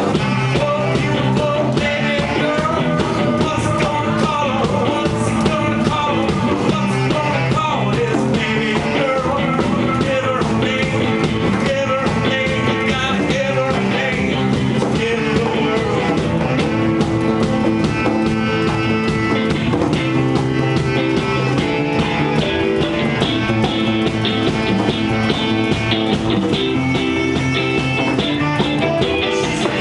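Rock band playing live, with guitar.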